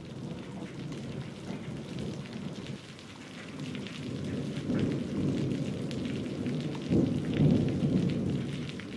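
Steady rain pattering, with rolling thunder whose low rumble swells about halfway through and again near the end.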